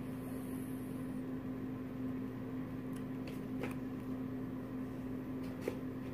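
Steady hum and whir of a running ceiling fan, with a couple of faint taps.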